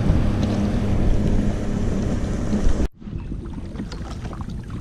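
Wind buffeting the microphone with a low rumble for about three seconds, then an abrupt cut to quieter water sounds: light splashes and drips of kayak paddling.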